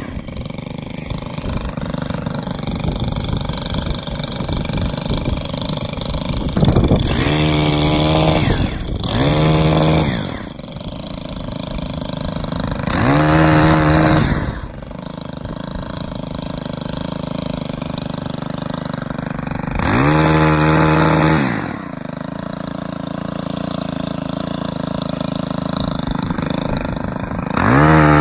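Chainsaw idling and revved up to full speed in five short bursts of a second or two, each rising and then falling in pitch, while cutting limbs off a birch tree.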